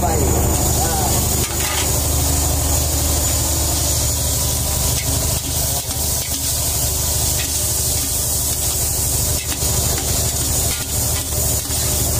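Spatula stirring and scraping sliced shallots, tomatoes and chilies sautéing in an aluminium pot, with scattered clicks against the pot and a light sizzle, over the steady low drone of the fishing boat's engine.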